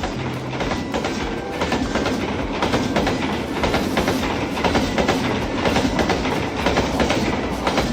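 Railway train running along the track, its wheels clattering over the rail joints in a steady clickety-clack.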